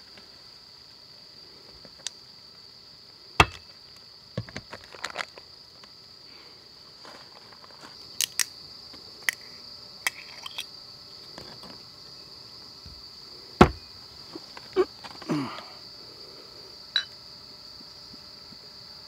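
Crickets chirring steadily at a high pitch, with scattered sharp clicks and knocks from a utensil on a grill pan, a soju bottle being opened and a glass being handled. The loudest knock comes about two-thirds of the way through.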